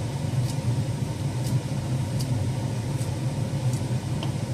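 A steady low hum, with a few faint, short clicks from a kitchen knife cutting fresh basil leaves held in the hand.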